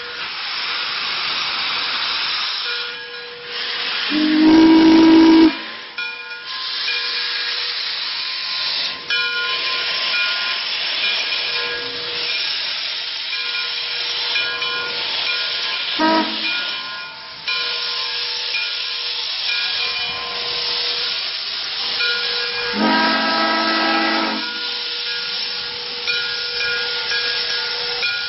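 Frisco 1630, a 2-10-0 Decapod steam locomotive, hissing steam from its open cylinder cocks as it moves off slowly. Its steam whistle sounds two blasts of about a second and a half, about four seconds in and again about 23 seconds in, with a brief toot in between; the first blast is the loudest sound.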